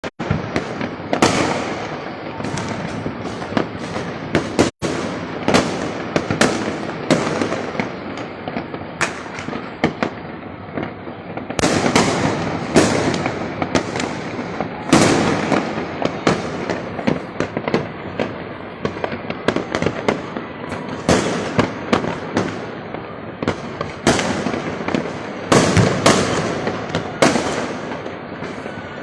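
Fireworks and firecrackers going off in quick succession: a dense run of sharp bangs over continuous crackling, with a momentary dropout about five seconds in.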